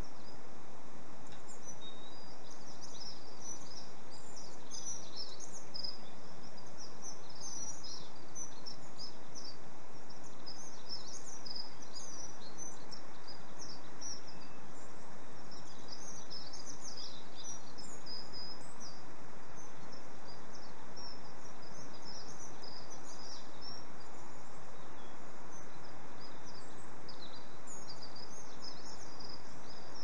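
Many small birds chirping and twittering throughout, over a steady even background hiss.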